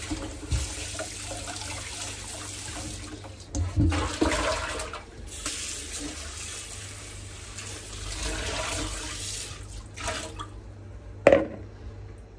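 Kitchen tap running while potatoes are washed under it, with a few knocks around four seconds in. The water is shut off about ten seconds in, followed by a single sharp knock.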